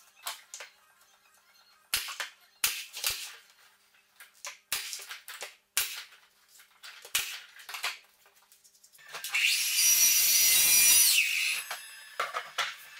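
A nail gun fires about seven separate shots, fixing skirting board to the wall. Then an Evolution Rage3-DB sliding mitre saw runs loudly for about two seconds and winds down.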